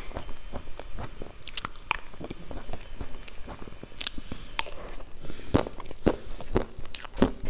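Close-miked eating sounds of a soft cream dessert: wet mouth and lip smacks and chewing, mixed with quick, sharp clicks of a metal spoon against a plastic cup.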